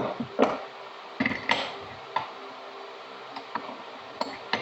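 Irregular metal clicks and clanks of tools and parts being handled, about eight separate knocks spread over a few seconds.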